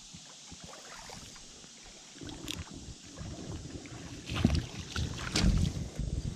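Faint ticking at first, then from about two seconds in, splashing and crunching steps in ankle-deep water over river gravel as a small bass is landed in the shallows. The loudest splashes come at about four and a half and five and a half seconds.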